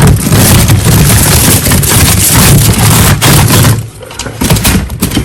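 Electronic gunfire and explosion sound effect: a dense, loud rattle of shots with a low boom for about four seconds, breaking into a few separate shots near the end.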